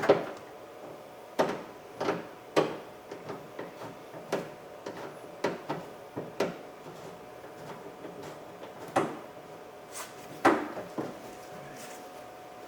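Irregular clicks and knocks of a socket and metal parts against the inside of a car door as a door-handle bolt is worked into place and started by hand.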